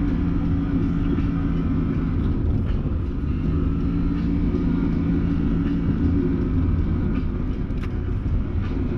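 Can-Am Maverick Sport X mr side-by-side's V-twin engine running as it drives the trail: a steady drone over a heavy low rumble, easing off for a moment about two seconds in and then pulling again.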